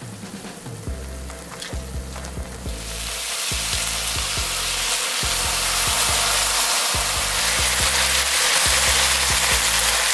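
Thin-sliced pork belly and green onion frying in a pan, a steady sizzle that grows much louder about three seconds in. Background music plays underneath.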